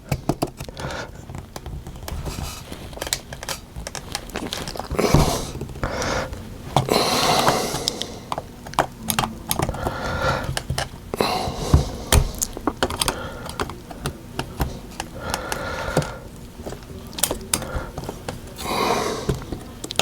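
Irregular plastic clicks, taps and scraping from hands pressing and prying at the plastic bezel tabs of a car touch screen assembly, tabs that will not push in.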